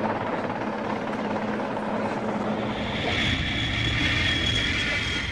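Helicopter rotor noise, then jet aircraft flying overhead: a high jet-engine whine over a low rumble comes in about three seconds in.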